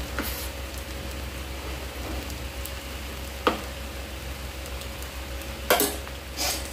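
Fried onions and freshly added ginger-garlic-chilli paste sizzling steadily in hot oil in a kadhai. A few sharp clicks come from a steel spoon against the steel bowl as the paste is scooped in, with two louder scrapes near the end.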